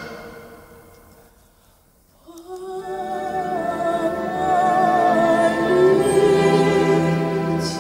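Music: a loud passage dies away almost to silence, then about two seconds in a slow, quiet passage begins, carried by a long-held melody line with vibrato over sustained lower notes.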